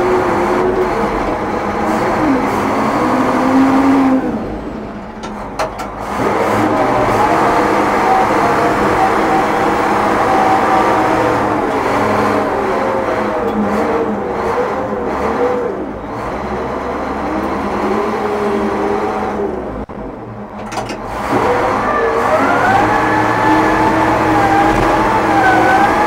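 International Harvester TD20E bulldozer working, its 800 cubic inch DVT800 V8 diesel running hard with engine speed rising and falling. The sound eases off twice, for a couple of seconds each time, then comes back. Whining tones wander up and down in pitch over the engine.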